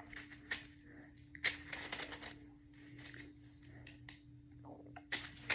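Faint handling noise of a stretchy worm fidget toy being played with in the hands: soft rustles and a few light taps, over a faint steady hum.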